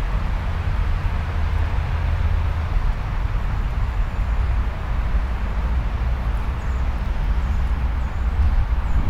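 Steady low rumble of wind on the microphone over an even hiss of outdoor background noise.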